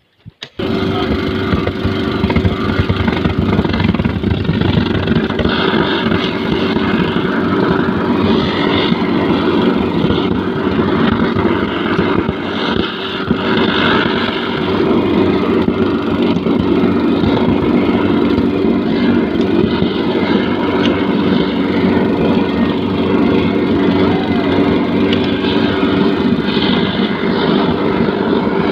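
Petrol-fuelled preheating burner for rail welding, lit and running: a loud steady roar that starts abruptly about half a second in, with a low hum held under it.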